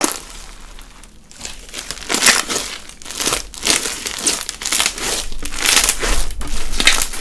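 Crunchy bead slime being squished and pressed by hand, the beads inside crackling and crunching in quick repeated bursts, sparse for the first second or so and then steady.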